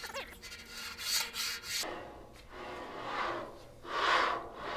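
Roller bearings of a CNC plasma table's gantry carriage being rolled back and forth by hand along a steel rail, a rough rubbing rasp in several strokes. The rail surface is unmachined mill scale rather than a machined track.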